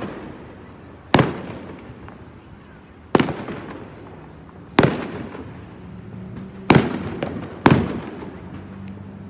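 Aerial fireworks shells bursting in a display: five loud bangs one to two seconds apart, each followed by a fading rumble.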